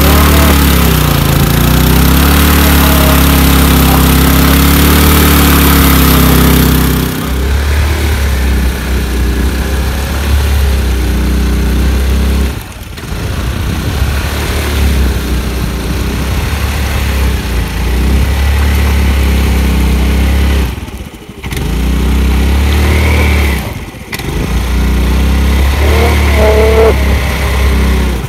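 Hero Maestro scooter's small single-cylinder engine revving hard while the scooter is stuck in mud, its rear wheel spinning. The engine note drops away and picks up again several times.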